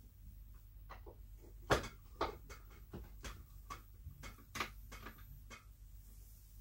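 Light, irregular clicks and knocks of the cooling unit's metal mounting brackets being pushed onto an inverter's heat-sink fins and secured with side screws by hand. Two knocks stand out, one about a second and a half in and one past the middle.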